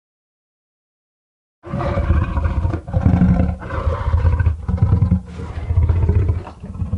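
Jurassic Park Tyrannosaurus rex roar sound effect. After about a second and a half of silence, a long, deep roar rises and falls in about five or six swelling pulses.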